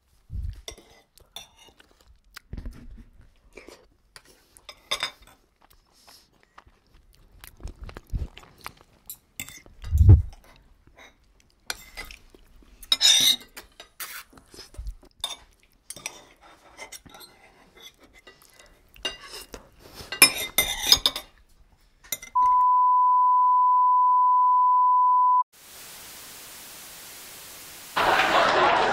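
Close-up clicks, scrapes and clinks of metal cutlery on a plate of spaghetti in tomato sauce, sparse and irregular, with one low knock about ten seconds in. About twenty-two seconds in this gives way to a steady, high beep lasting about three seconds, then an even hiss like static. A louder, busier sound cuts in near the end.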